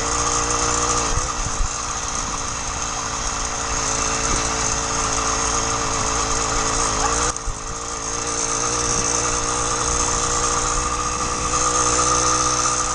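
80cc two-stroke motorized-bicycle engine kit, brand new and on its first mile, running steadily under way, with a short dip in loudness about seven seconds in.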